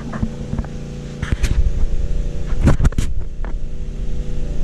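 Steady low machine hum with a stack of even pitched lines, broken by sharp knocks and clatters, a cluster about a second and a half in and another near the three-second mark; the hum gets louder about a second in.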